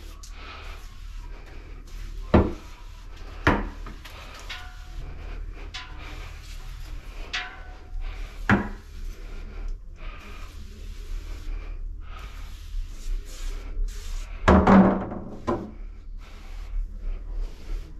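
Scattered knocks and taps against wooden closet shelving and cabinetry while a pest sprayer wand is worked around the shelves. The loudest is a cluster of bangs about fifteen seconds in, over a low steady hum.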